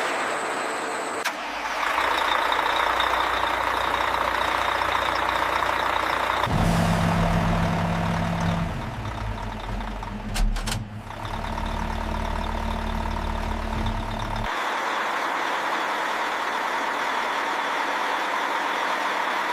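A steady hiss of workshop machinery, broken from about six to fourteen seconds by the low, even drone of a heavy diesel engine running, with a couple of sharp clicks partway through.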